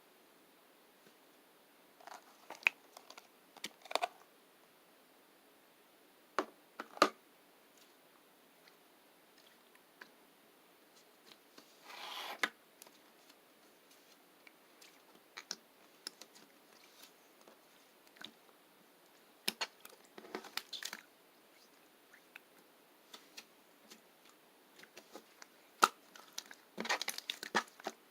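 Slime being squeezed and pulled by hand: scattered sticky clicks and pops, with short crackly squishes about twelve seconds in, around twenty seconds, and near the end.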